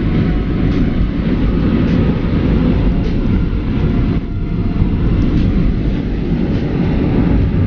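Steady engine and road rumble of a truck cruising at speed on a highway, heard from inside the cab.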